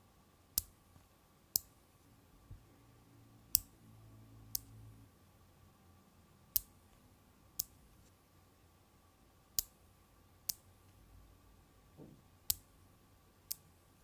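5 mm magnet balls clicking sharply as they snap together onto a ball-built sphere: about ten separate clicks, mostly in pairs about a second apart.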